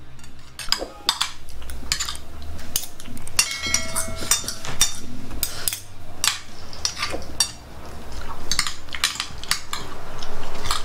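Metal spoon and fork clinking and scraping on a ceramic plate while eating, in many short, irregular clicks; one clink rings on briefly about three and a half seconds in.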